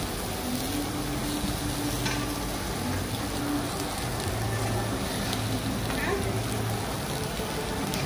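Egg-and-squid seafood omelette sizzling steadily as it fries in a cast-iron pan over a gas burner.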